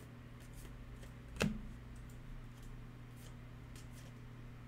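Trading cards being slid and flipped through by hand, soft card-on-card swishes, with one sharp click about a second and a half in. A faint steady hum runs underneath.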